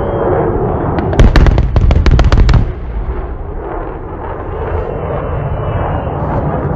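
Air show ground pyrotechnics detonating: a rapid string of about ten sharp bangs over about a second and a half, set off with a fireball explosion, followed by a low rumble.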